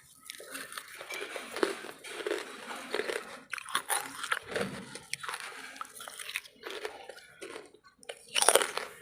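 A person biting and chewing pieces of wood charcoal close to the microphone: a run of irregular crisp crunches, with one loud bite near the end.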